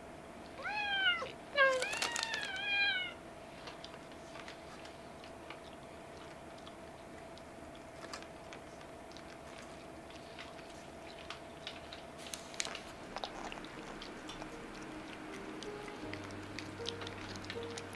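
A cat meowing three times in quick succession, each call rising and falling in pitch. Soft background music notes start near the end.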